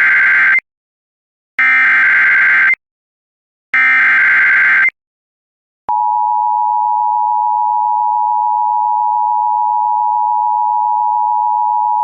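Emergency Alert System header: three bursts of screeching SAME digital data tones about a second long and a second apart, the first already under way, then after a short pause the steady two-tone EAS attention signal starts and holds.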